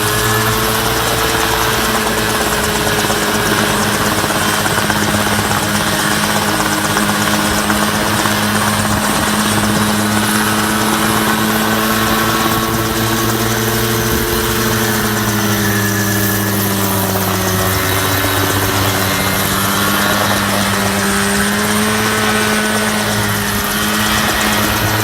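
Small grass-cutter engine of a homemade helicopter running steadily. Its pitch sags a little past the middle and picks up again near the end.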